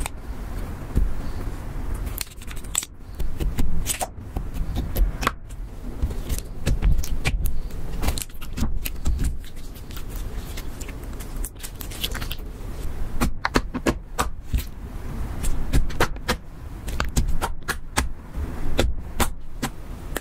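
Clear slime streaked with red lipstick being stretched, folded and squeezed by hand: irregular sticky clicks, pops and crackles, some in quick clusters.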